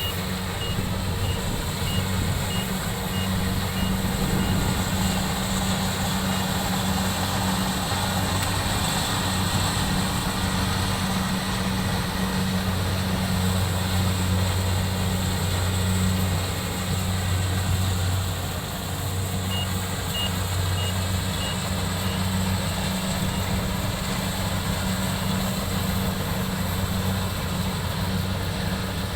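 Combine harvester's engine running steadily in a rice field, with a low, even drone. A faint series of quick high beeps sounds in the first few seconds and again about two-thirds of the way through.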